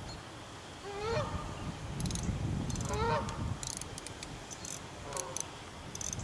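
Geese honking: three calls about two seconds apart, the last one fainter, with short high ticks in between.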